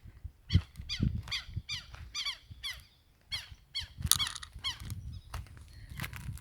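A rapid series of short, high squeaky chirps from a small animal, each falling in pitch, about four a second, with a brief pause partway through.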